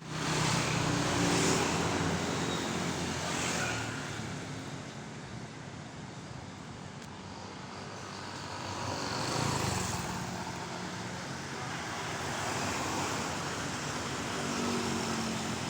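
Roadside traffic: motor vehicles running past with engine hum and tyre noise, swelling and fading several times.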